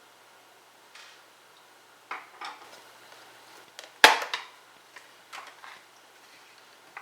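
Scattered clicks and knocks of hard plastic and metal parts being handled while a dishwasher's control panel cover is taken off, with one loud sharp clack about four seconds in.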